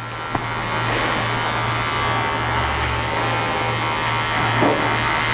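Electric hair clipper running with a steady buzz as it cuts a boy's short hair, with a single click about half a second in.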